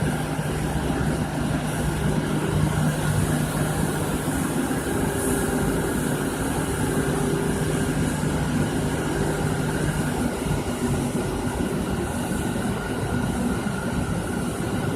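A steam-producing machine running steadily: a continuous mechanical drone with a low hum that fades out about ten seconds in.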